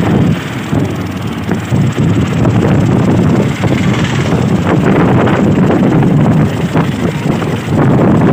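Ride noise inside a moving open-sided rickshaw: a steady low road rumble with wind buffeting the phone's microphone and scattered knocks and rattles from the vehicle.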